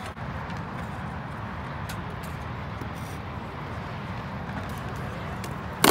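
Stunt scooter's wheels rolling over concrete, a steady rumble, with a sharp clack near the end.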